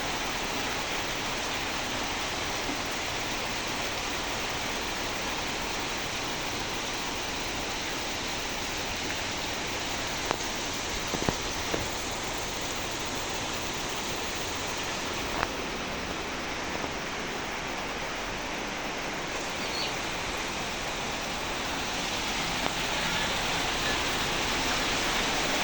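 Steady rain falling, an even hiss, with a few sharp ticks of drops or knocks partway through. It grows louder near the end.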